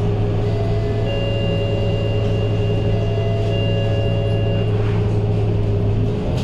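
Scania K230UB bus's five-cylinder diesel engine idling, heard from inside the cabin, with a steady low hum. A few steady high tones sound over it for about four seconds.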